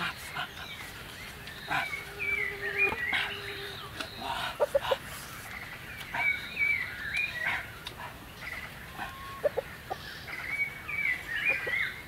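Forest birds calling: a short, stepped, chirping phrase repeated every few seconds, with a few brief sharp clicks in between.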